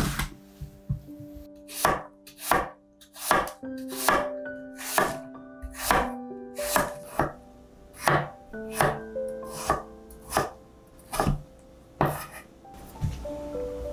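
Kitchen knife slicing apple and then tomato on a wooden cutting board: a steady series of sharp knife knocks on the board, roughly one every half second to second, stopping near the end.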